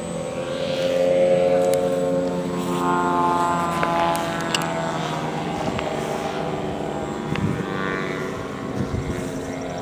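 Engine and propeller of a model airplane flying at the airfield, a steady pitched drone whose pitch rises and falls as it passes, with a few sharp clicks about halfway through.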